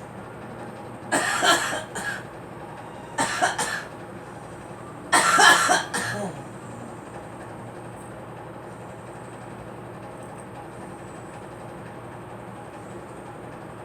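A girl coughing in three short fits, about two seconds apart, over a steady background hum.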